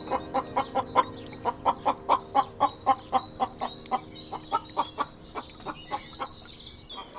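Chicken clucking in a rapid run of short calls, about four a second, thinning out after about five seconds, with a higher thin chirping over the second half.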